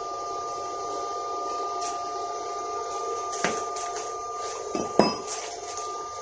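Powerhouse inverter welding machine switched on and idling with a steady two-tone whine. The cables and clamp are handled over it, with a light click about three and a half seconds in and a sharper click about five seconds in.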